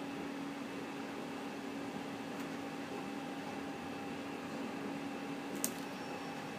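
HP Color LaserJet 2600n colour laser printer running its colour calibration: a steady mechanical hum with a low drone and a fainter higher tone, and a single sharp click about five and a half seconds in.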